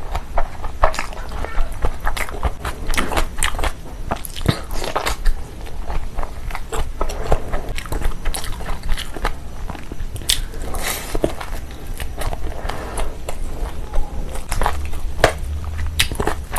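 Close-miked eating sounds: a person biting and chewing food, with a steady run of wet smacks, clicks and occasional crunches.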